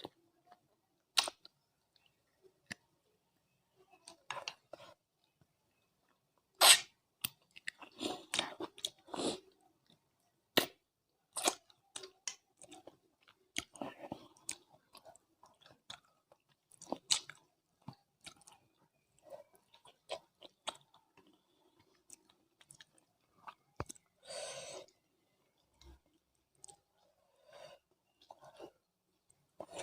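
Close-miked chewing and mouth sounds of a person eating rice with curry: irregular wet smacks and clicks with occasional crunches, and one longer noisy burst about three-quarters of the way through.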